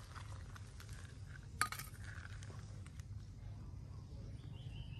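Enamel plate set down on gravel: one sharp clink about a second and a half in, over a faint steady background.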